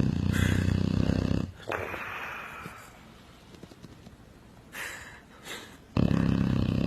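Loud snoring that sounds like a motorcycle engine. A low, rattling buzz runs on each snore for about a second and a half, followed by a hissing breath out. The next snore starts about six seconds in.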